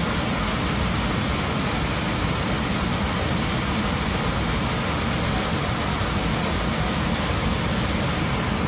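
Loud, steady roar of rushing air and engine noise inside the cabin of an Airbus A321 airliner after an onboard explosion blew a hole in the fuselage.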